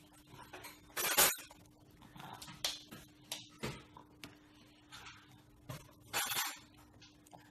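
Plastic spoon clinking and scraping against a plastic plate: a handful of short, sharp clatters, the loudest about a second in and another near six seconds.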